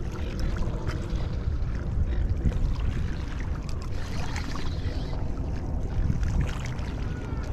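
Wind buffeting the microphone: a steady low rumble, with a few faint small ticks scattered through it.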